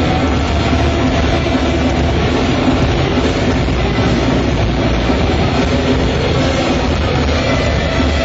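Loud live heavy metal band playing: distorted electric guitar picked fast over a dense, driving full-band backing, with no breaks.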